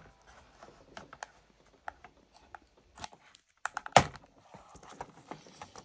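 Old laptop keyboard being pried out of an eMachines e732 with a plastic triangle pry tool: scattered clicks and taps of plastic on plastic as the keyboard's retaining clips give, with the loudest snaps about four seconds in.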